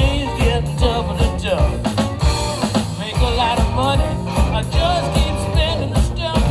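A blues band playing a slow blues: drum kit and bass keeping a steady beat, with lead lines bending and wavering in pitch over the top.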